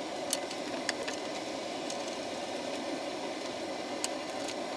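Steady mechanical whir in the background, with a few light clicks and rustles as Ethernet patch cables are handled and plugged in.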